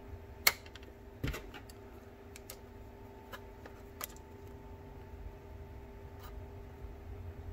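Small clicks and taps of a screwdriver tip and plastic parts as an instrument cluster is worked apart: a sharp click about half a second in, another about a second later, then a few fainter ticks, over a faint steady hum.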